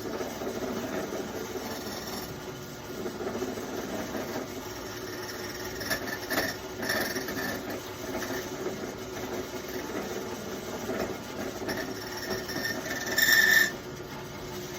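Key cutting machine cutting a key blank: steady scratchy rasping of the cutter against the metal, with a few knocks midway and a brief louder, higher-pitched scrape near the end.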